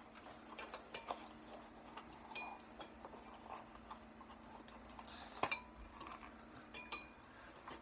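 Metal spoon stirring liquid in a glass measuring cup, clinking against the glass at irregular intervals, a few strikes with a short ring.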